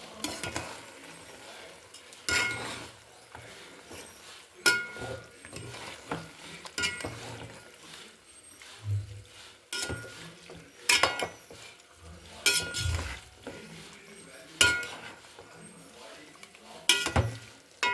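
Metal utensil striking and scraping against metal cookware: about a dozen ringing clinks, a second or two apart, as food is stirred.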